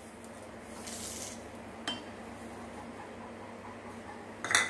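Chopped onion, garlic, seeds and red chili tipped from a small bowl into a glass bowl: a soft sliding hiss about a second in, a single light tap about two seconds in, then a quick run of glass-and-dish clinks near the end.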